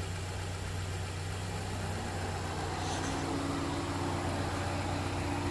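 Subaru Outback's engine idling steadily, a low even hum, with a second steady hum coming in about three seconds in.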